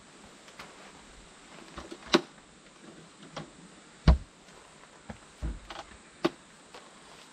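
Scattered knocks and clicks of things being handled, with a heavier low thump about four seconds in.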